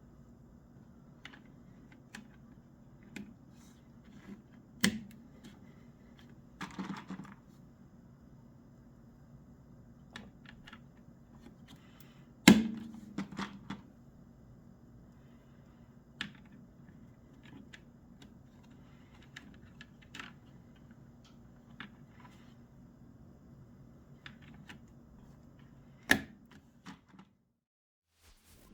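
Scattered plastic clicks and taps of mechanical keyboard parts being handled, irregular and a second or so apart, with a few louder knocks and a brief rustle, over a faint steady low hum.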